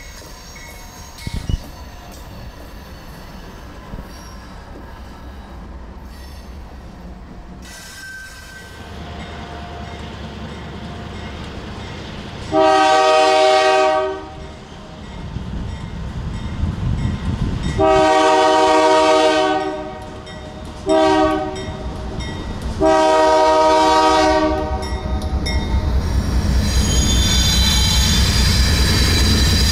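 Freight train diesel locomotives: first the low steady rumble of a train rolling slowly past. Then a Union Pacific locomotive sounds its multi-note air horn in the grade-crossing pattern of long, long, short, long. Near the end the locomotive's engines and wheels grow loud as it approaches and passes.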